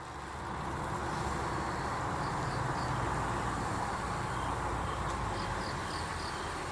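Steady outdoor street ambience at a railroad crossing: a low rumble and hiss of distant traffic, with faint high chirps repeating now and then.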